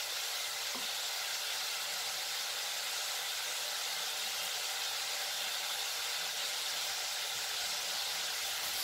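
Onion, green chilli and tomato frying in coconut oil in a pan, a steady sizzle.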